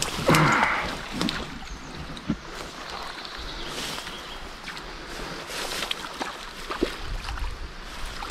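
Rustling, scraping and scattered footfalls of someone clambering down a steep, overgrown riverbank, with a loud scuffle at the start and river water running underneath. Wind buffets the microphone near the end.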